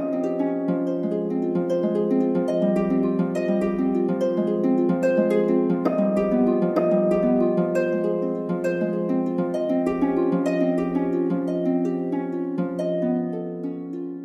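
Relaxing background music of gently plucked harp notes flowing in quick succession over a sustained low tone.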